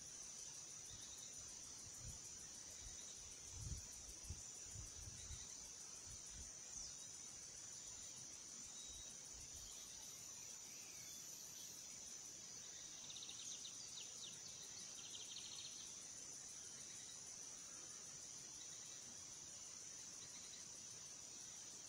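Faint, steady, high-pitched buzzing of insects, with a few soft low thumps in the first few seconds and brief chirps about halfway through.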